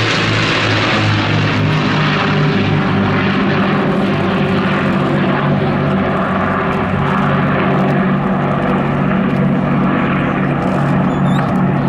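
Avro Lancaster flying in formation with a Spitfire and a Hurricane, its Rolls-Royce Merlin piston engines and propellers giving a loud, steady drone.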